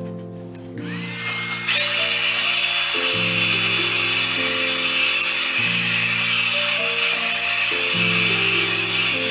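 Handheld hair dryer switched on under two seconds in, whining up briefly, then blowing with a steady loud rush and a thin high whine. Background music of slow, sustained keyboard notes plays underneath.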